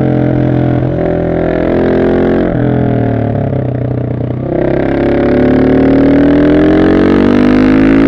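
Husqvarna 701 SM's single-cylinder engine through a de-catted Arrow exhaust, accelerating with a gear change about a second in. It eases off the throttle around the middle, then pulls hard again with its pitch rising steadily to the end.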